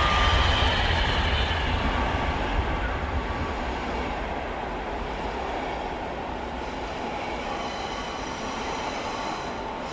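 High-speed train running, with a high whine falling in pitch that ends about half a second in. The noise fades over the first few seconds, then holds steady.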